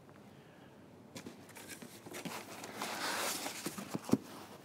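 Packing material and cardboard rustling and scraping as the box is handled. The rustling starts about a second in and grows louder toward the middle, with one sharp knock about four seconds in.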